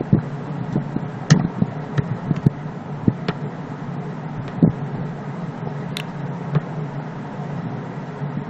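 Computer mouse clicks, about nine of them at irregular times, over a steady low background hum.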